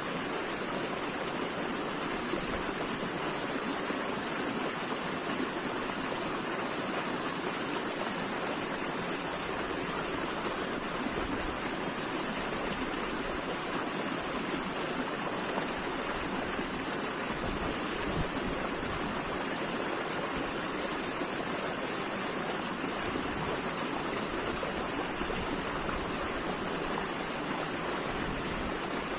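Running water, a stream flowing steadily with an even rushing hiss that does not change.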